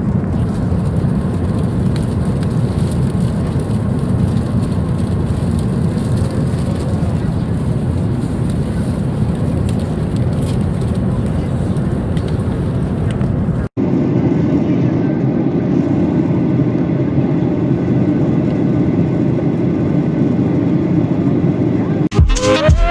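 Steady noise of a Boeing 737-800's jet engines and airflow heard inside the passenger cabin. About two-thirds of the way through there is an abrupt cut to another steady stretch of cabin noise with a faint hum, and music starts right at the end.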